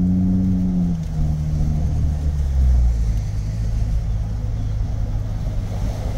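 Exhaust of a Chevy Silverado's 2.7 L turbocharged four-cylinder, running through a Cherry Bomb muffler with the resonator and flapper valve removed, heard through open front windows while driving. The engine note drops abruptly about a second in, then settles into a deeper rumble mixed with road and wind noise.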